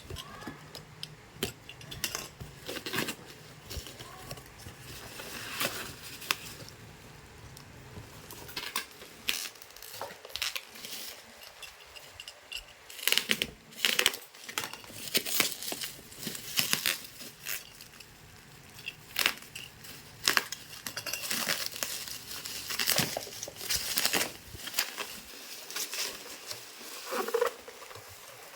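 Hair dryer packaging being unpacked by hand: irregular crinkling and rustling with scattered clicks and light knocks, busiest in the middle.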